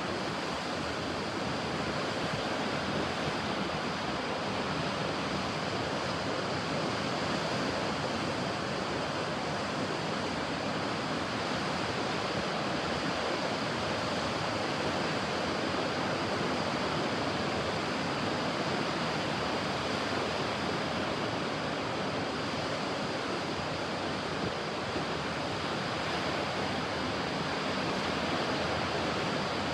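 Ocean surf washing onto a beach, a steady, even rush of water with no single wave breaking out of it.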